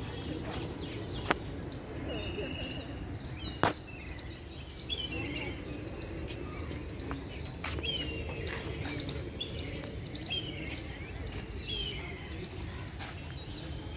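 Birds calling in garden trees: short falling chirps, repeated every second or two, over a murmur of distant voices. Two sharp clicks stand out in the first four seconds.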